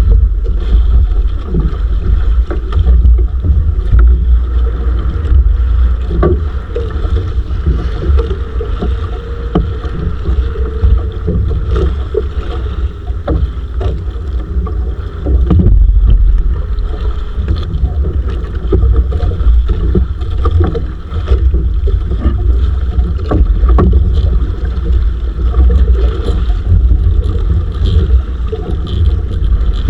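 Wind buffeting the microphone aboard a small fishing bangka, a loud rumbling rush with a faint steady hum under it and scattered small knocks.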